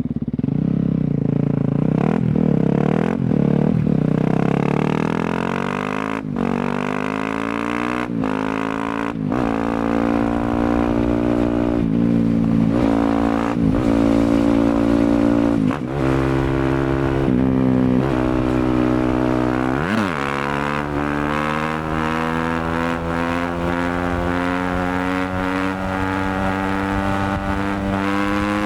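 Yamaha WR250F's single-cylinder four-stroke engine running through an FMF aftermarket exhaust, blipped sharply on the throttle about ten times, each rev jumping up and dropping straight back. In the last third the revs climb slowly and steadily.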